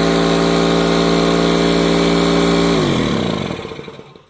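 Electric air compressor running loud and steady, then switched off about three seconds in and spinning down, its pitch falling as it fades.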